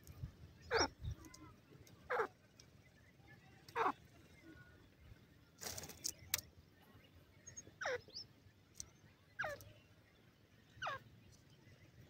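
Francolin chicks peeping: six clear single calls, each sliding quickly down in pitch, repeated about every one and a half seconds. A brief rustling noise comes a little before the middle.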